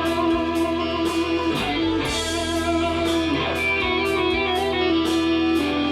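Electric guitar playing an improvised lead line over a backing track, with a steady low bass line and a regular drum beat about twice a second.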